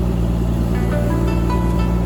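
Fishing boat's engine running steadily with a low hum, and a few short, high musical notes over it about a second in.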